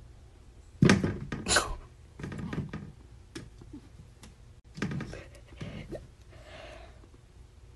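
A cat batting and scuffling at a mirror propped on the floor: irregular knocks and thumps, the loudest about a second in.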